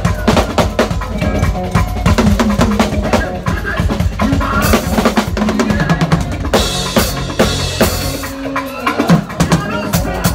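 Drum kit played fast in a gospel praise groove, with bass drum, snare and rim shots driving the rhythm and the band playing underneath. Cymbal crashes ring out twice in the middle.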